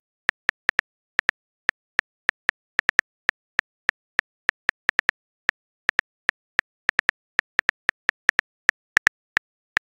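Simulated phone keyboard typing sound: short, sharp clicks, one per letter typed, about three or four a second at an uneven pace.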